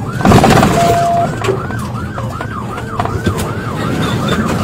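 Police siren on yelp, rapid rising-and-falling sweeps about three a second, over the pursuing cruiser's engine and road noise. A short burst of noise comes just after the start, and a brief steady beep about a second in.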